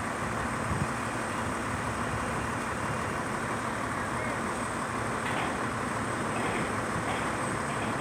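The engine of a truck-mounted crane running steadily.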